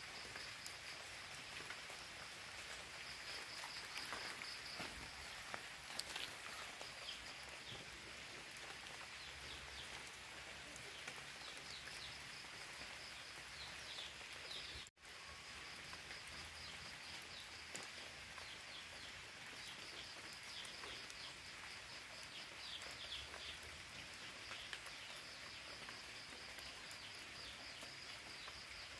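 Outdoor ambience: a steady hiss under high-pitched chirping of birds and insects, with scattered faint clicks. The sound cuts out for an instant about halfway through.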